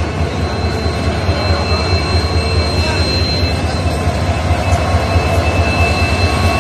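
WDP4D diesel-electric locomotive's 16-cylinder two-stroke EMD engine running, a steady low drone with a thin, steady high whine above it.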